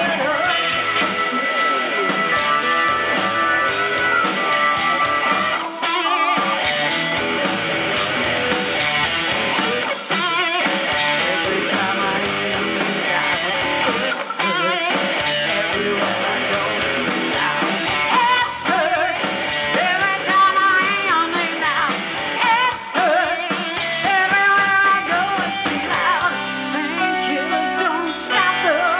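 Live blues-rock band playing through a PA: electric guitars, bass, drums and keyboards, with a woman singing lead. Held notes and wavering, bending melody lines run through the second half.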